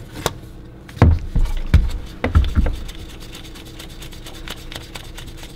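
A handful of dull knocks and bumps from gloved hands working a new ignition coil into place on a golf cart engine, bunched between about one and three seconds in, over a faint steady hum.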